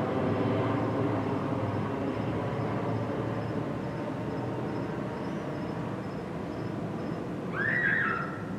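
Jet noise of a Boeing P-8A Poseidon's twin CFM56 turbofan engines, a steady sound slowly fading. A short bird call comes near the end.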